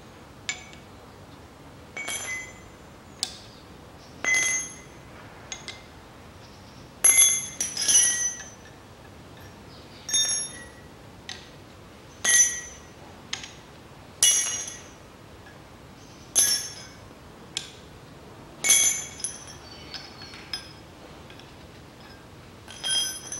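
Steel adapter wrenches of an OEM Tools 27178 inner tie rod tool set clinking against each other and against a tie rod as they are picked out and tried on. Each clink rings briefly, bell-like; about a dozen come at irregular intervals, a second or two apart.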